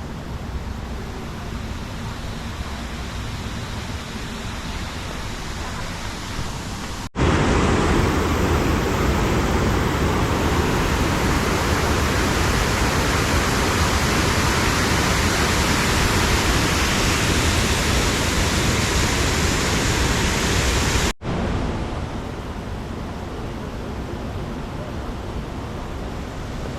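River water rushing steadily. It jumps abruptly to a louder, hissier rush about seven seconds in and drops back to the softer rush just as abruptly about fourteen seconds later.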